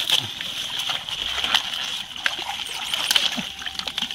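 Water splashing and dripping as clumps of water hyacinth with muddy roots are pulled out of shallow water, in many short irregular splashes, over a steady high-pitched buzz.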